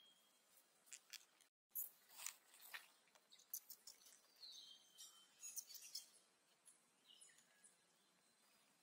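Animal calls: a high, thin cry that slides down and settles on a held note, twice, with scattered light clicks and taps between them.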